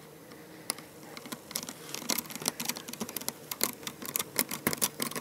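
Small clicks and scrapes of a Phillips micro screwdriver turning a screw into a laptop's plastic case: a few scattered clicks, then quick, rapid clicking from about two seconds in.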